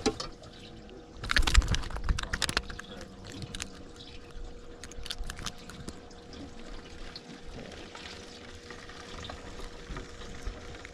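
Water splashing and dripping with a quick run of sharp clicks and rattles about a second in and a few more midway, over a faint steady hum.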